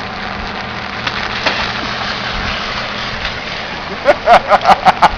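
Steady pouring rain hissing on the ground and wet surfaces. About four seconds in, a quick string of short, high-pitched calls breaks in, about five a second.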